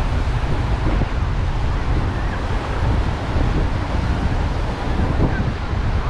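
Wind rumbling on the microphone over the steady wash of waves breaking on the shore.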